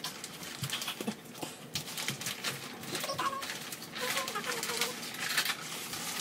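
Skinless longganisa sausages sizzling and crackling in hot oil in a nonstick frying pan. Faint wavering calls sound in the background about halfway through and again a little later.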